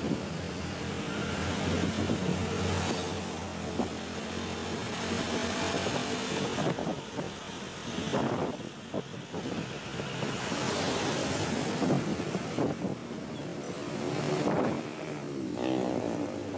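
Trucks and other vehicles passing on a busy highway: diesel engine hum and tyre noise that swells and fades as each one goes by, several times.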